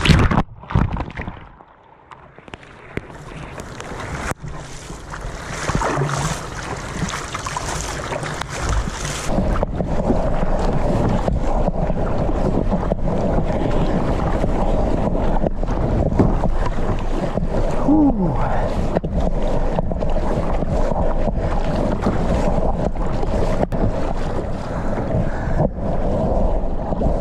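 Wind buffeting the microphone over the slosh of water and waves around a small boat heading out through the surf. It dips quieter about two seconds in and is louder and steadier from about nine seconds on.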